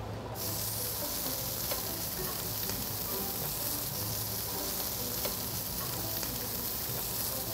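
Bite-sized pork offcuts and garlic cloves sizzling on a flat grill plate: a steady frying hiss with a few faint pops.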